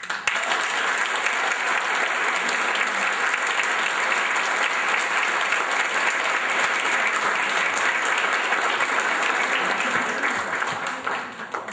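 Audience applauding: steady, dense clapping from a seated crowd that starts at once and dies away near the end.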